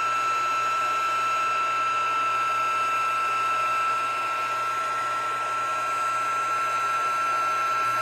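Embossing heat tool running steadily, a high whine over a rush of blown air, as it melts copper embossing powder on cardstock.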